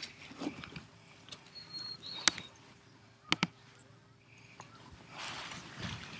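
A horse grazing close by: sharp tearing snaps as it crops grass, the two loudest a little past two and three seconds in, with crunchy chewing between them.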